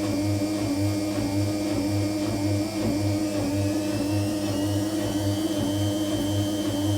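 Washing machine pump running with a steady hum over a low throb that pulses just under twice a second; a faint high whine rises and then holds about four to five seconds in. The owner finds this pump noise abnormal but does not know its cause.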